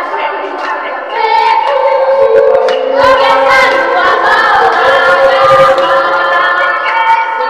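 A crowd of mostly women's voices singing a Nias maena song together, getting louder about a second in.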